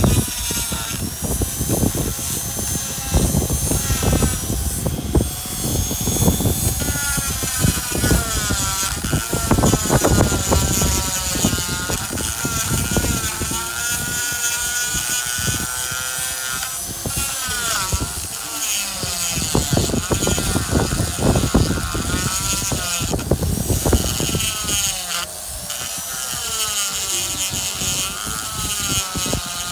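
Handheld rotary power tool with a burr bit grinding into a stone arch: a motor whine that dips and rises as the bit bites into the stone and is eased off, over a gritty scraping.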